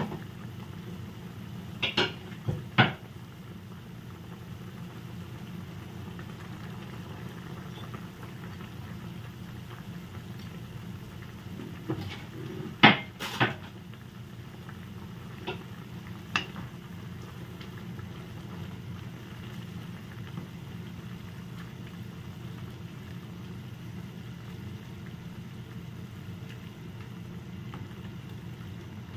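Soup boiling in an open pot with a steady low bubbling, broken by a few sharp knocks of a utensil against the pot: two about two seconds in, a louder cluster around thirteen seconds, and two lighter ones soon after.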